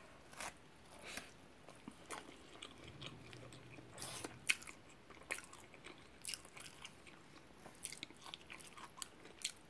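A person eating a fried shrimp and fish burrito close to the microphone: quiet chewing with scattered wet mouth clicks and light crunches.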